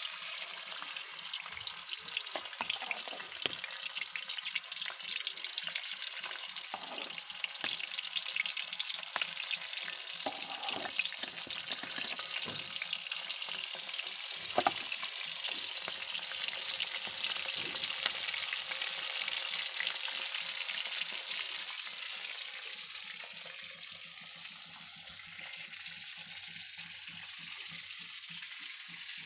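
Whole fish sizzling in hot oil in a wok, a dense hiss full of small crackles and spits. It drops to a fainter, steadier hiss about two-thirds of the way through.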